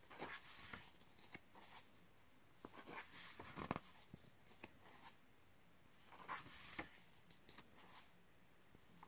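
Faint rustling and swishing of the paper pages of a colouring book being turned and smoothed by hand, in several short bursts, the loudest about three and a half seconds in.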